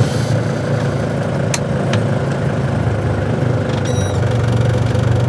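Camper van's engine idling steadily, heard from inside the cab. Two faint clicks come about a second and a half in, and a brief high squeak about four seconds in.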